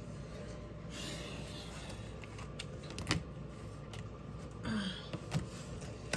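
A few scattered light clicks and taps of small objects being handled on a desk, the sharpest about three seconds in, over a low steady hum.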